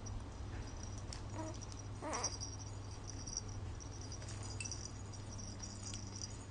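Lamaze Freddie the Firefly plush baby toy being grabbed and shaken by a baby's hands: soft rattling and rustling with small clicks, and a brief squeak about two seconds in.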